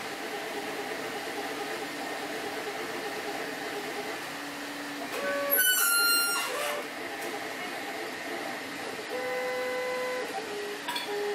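A steady mechanical whir, like a small fan or blower, with a few short electronic tones at different pitches scattered through it and a quick run of high tones about halfway through.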